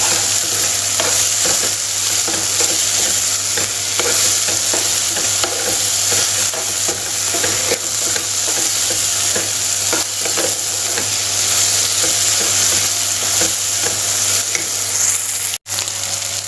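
Onion-tomato masala sizzling in hot oil in a pan while a metal spoon keeps stirring and scraping it: many short scrapes over a steady hiss. The grated onion is stirred constantly so it does not stick to the pan. The sound drops out for an instant near the end.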